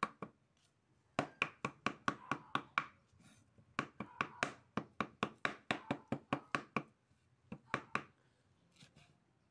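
Kitchen knife chopping shredded coconut coir against a wooden plank: runs of quick, sharp strokes at about six a second, with short pauses between runs and the longest run in the middle.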